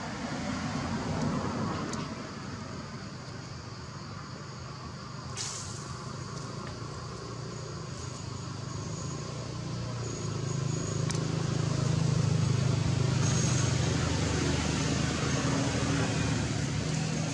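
A motor vehicle engine running steadily, growing louder about ten seconds in. A single sharp click about five seconds in.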